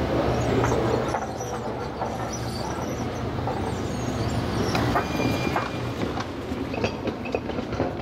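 A train running on nearby tracks: a steady rumble with wheels clicking over the rails and a brief high wheel squeal about five seconds in. Sharper clicks come near the end.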